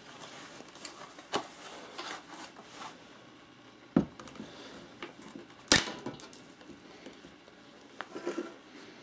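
Plastic housing parts of a Cisco 8865 IP phone being handled, pulled apart and set down: scattered clicks and knocks, the sharpest about six seconds in, and a short run of small ticks near the end.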